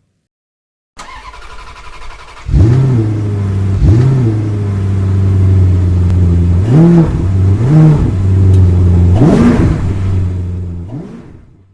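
Car engine running at a low idle, revved in several short blips and once harder near the end, then fading out.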